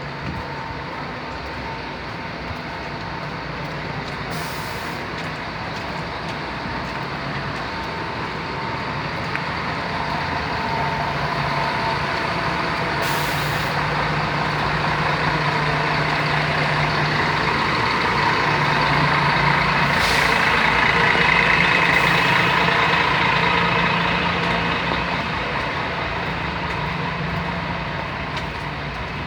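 Heavy diesel traffic, buses and trucks, running in stalled traffic, with short air-brake hisses a few times. The engine noise swells to its loudest about two-thirds of the way through, then fades.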